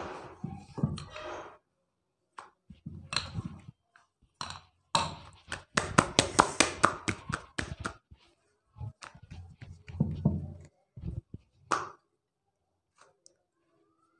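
Wooden rolling pin knocking and clattering against a board in several bursts of rapid clicks as dough is rolled out, busiest in the middle, with single taps and thuds as the pin is set down and the dough is handled.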